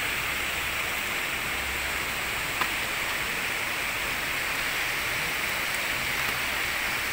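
Steady rush of flowing river water, with one brief click about two and a half seconds in.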